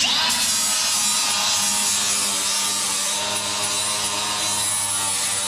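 Power grinder with an abrasive disc running steadily against a car's sheet-steel floor pan, stripping paint and rust to bare metal as prep for welding. It starts abruptly right at the beginning and holds a steady whine.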